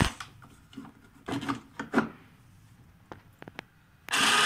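The home-automation model's door panel scraping as it slides. A short scrape at the very start, a few light clicks and brief rubs in the middle, and a louder scrape of about a second near the end.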